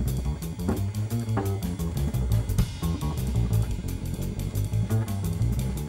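Big band music, with guitar, bass and drum kit keeping a steady beat.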